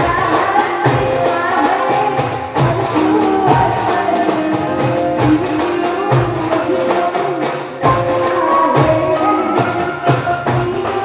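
Bansuri (bamboo flute) melody played over a steady percussion beat.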